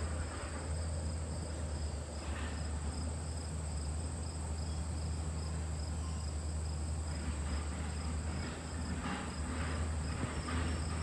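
LG air conditioner running under load with a steady low hum from the compressor and its newly replaced condenser fan motor, while crickets chirp steadily in the background.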